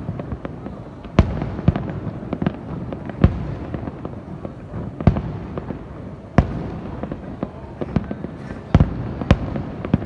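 Aerial fireworks bursting: a dozen or so sharp bangs at uneven intervals over a continuous low rumble of more distant shells.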